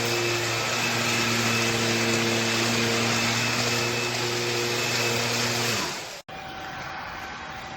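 Bissell PowerClean FurFinder cordless stick vacuum running with a steady motor whine, which winds down in pitch as it is switched off about six seconds in. A quieter steady hum follows.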